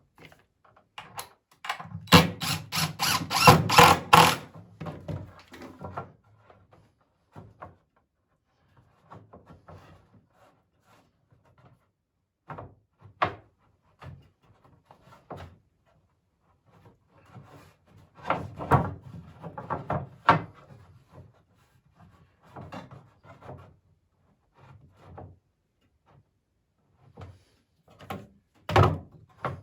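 Wooden boards and tools being handled while a porch swing is assembled: scattered knocks and thuds. About two seconds in comes a loud, rapid rattling run of strokes lasting a couple of seconds, with more clusters of knocks later.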